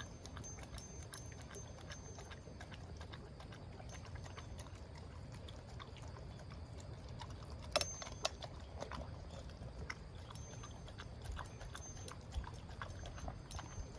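A small pet eating its breakfast: irregular small clicks and crunches, several a second, with a sharper click about eight seconds in.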